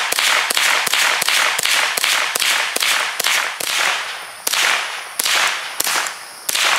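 Rifle fired rapidly in a steady string of single shots, about two and a half a second, each a sharp crack with a short echoing tail.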